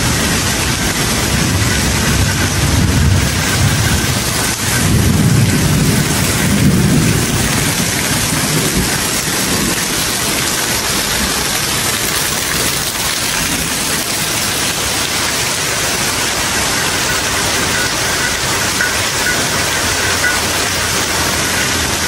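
Heavy downpour: a steady hiss of rain falling on grass, gravel and a porch roof, with water streaming off the roof eaves. A low rumbling comes and goes in the first several seconds.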